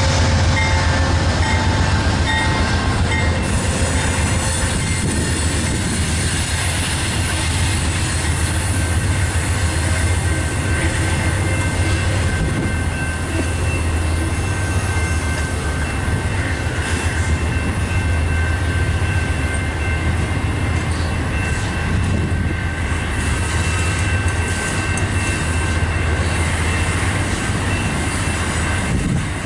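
Amtrak passenger coaches rolling past close by: a steady rumble of wheels on rail over a strong low hum, with thin, steady high-pitched wheel squeal tones.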